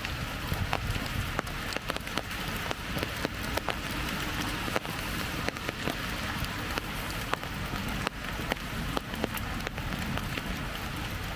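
Light rain falling, with drops tapping irregularly on an umbrella overhead over a steady patter, and a low rumble underneath.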